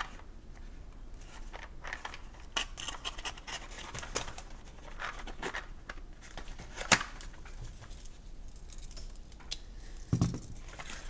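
Cardboard game box being handled and its bottom flap pried open: scattered rustling and scraping of cardboard, a sharp snap about seven seconds in, and a dull thump near the end.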